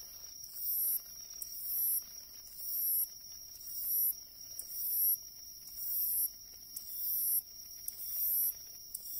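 Hayashi-no-umaoi katydid (Hexacentrus unicolor) singing its drawn-out 'suiii-chon' call. It repeats about once a second, each call very high-pitched, swelling over about half a second and then cutting off sharply. A steady high tone runs underneath.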